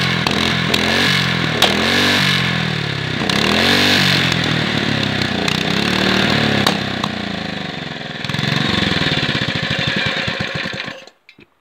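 Tuned-up Honda GX120 single-cylinder four-stroke engine running and being revved up and down by hand at the throttle, several rises and falls in pitch. The engine stops near the end.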